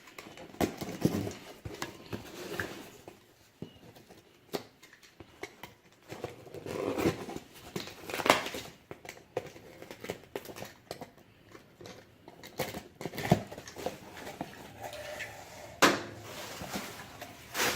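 A parts package being opened and unpacked by hand: cardboard and packing material rustling, with scattered knocks and clicks as the contents are handled.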